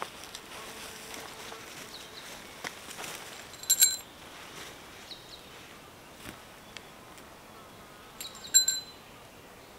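Metal tent pegs clinking against each other with a short bright ring, in two quick clusters about four and a half seconds apart, over faint outdoor background noise.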